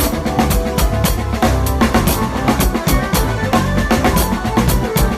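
Acoustic drum kit played in a busy, steady groove: rapid kick drum thumps under snare and cymbal hits.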